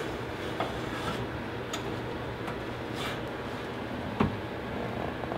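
Light ticks and one sharper knock about four seconds in from a ceramic tart dish and metal oven rack, over a steady low hum from the open oven.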